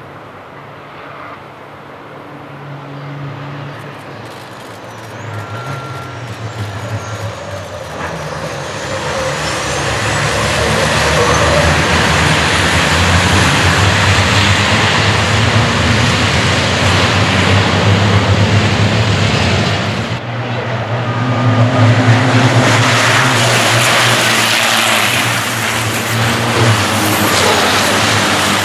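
Pack of racing trucks with big turbodiesel engines running hard as they race by. The engine noise builds from fairly quiet to loud over the first ten seconds, dips briefly about twenty seconds in, then is loud again.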